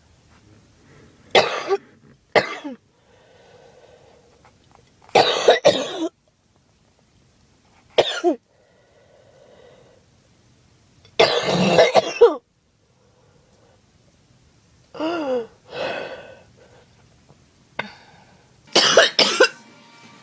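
A girl coughing in about eight separate bouts, each one to a few harsh coughs, coming every two to four seconds. Some coughs end in a throaty voiced sound that falls in pitch.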